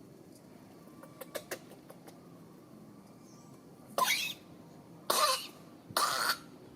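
A nursing mother animal coughing three times, each a short harsh cough about a second apart, in the second half.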